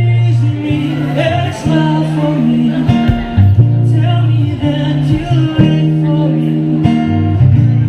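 Live acoustic jam: a guitar and a singer over held low bass notes that change every second or so.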